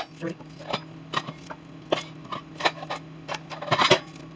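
A small knife cutting chunks off a whole onion held in the hand, the pieces dropping onto raw fish fillets in a metal skillet: irregular crisp clicks and taps, about two a second.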